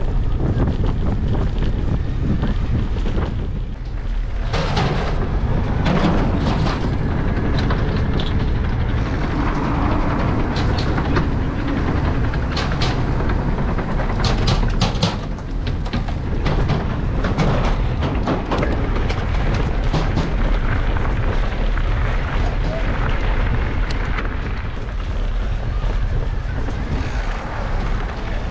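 Wind rumbling on the microphone as an electric mountain bike is ridden, with scattered clicks and knocks from the bike rattling over rough ground.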